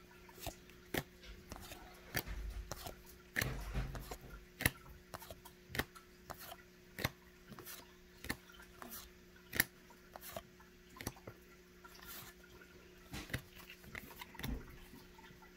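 Trading cards being flipped through by hand, a short crisp snap as each card slides off the stack, about one to two a second, with a couple of dull thumps of handling a few seconds in. A faint steady hum runs underneath.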